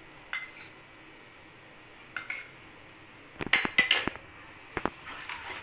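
Kitchen utensils knocking and clinking against a metal frying pan while thick urad dal dough is stirred with a wooden spatula: a couple of single knocks, then a quick cluster of ringing clinks about three and a half seconds in, and one more near the end.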